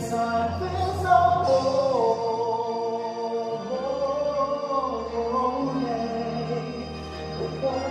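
Male solo voice singing a slow gospel ballad through a microphone and PA, holding long, gliding notes over an instrumental accompaniment.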